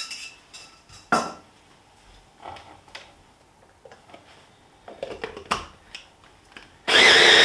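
Knocks, scrapes and clinks as cooked peas are emptied from a stainless steel pan into a stick blender's chopper bowl and the motor unit is fitted on. Near the end the stick blender starts with a steady, high-pitched whine, puréeing the peas.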